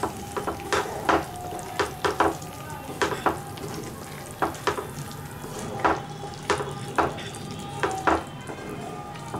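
Wooden spatula stirring a thick curry in a non-stick frying pan, knocking and scraping against the pan at irregular moments, over a low sizzle of the cooking gravy.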